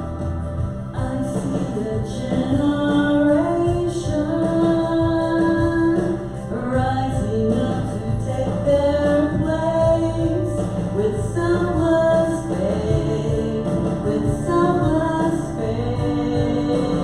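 Contemporary worship song: singing over instrumental backing.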